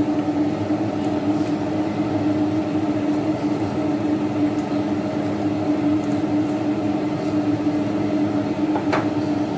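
A steady mechanical hum with a strong low drone, from a running kitchen appliance, with one sharp knock near the end.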